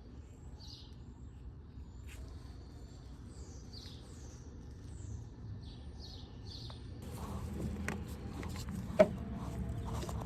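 Small birds chirping, a string of short falling notes, over a steady low rumble. About seven seconds in the chirps give way to a noisier background with a few sharp clicks, one about nine seconds in.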